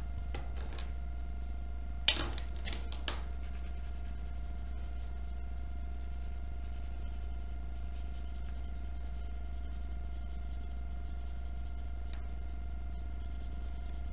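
Colored pencil scratching rapidly back and forth on paper as a sky area is shaded in, with a few sharp clicks in the first three seconds. A steady low hum runs underneath.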